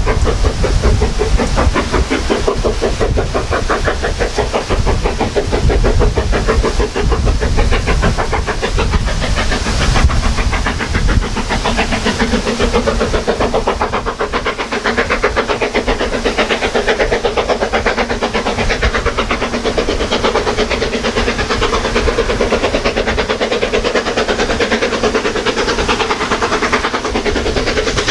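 BR Standard Class 9F 2-10-0 steam locomotive No. 92214 working hard as it draws a passenger train away from a station. Its exhaust beats come in a rapid, even rhythm over a steady steam hiss.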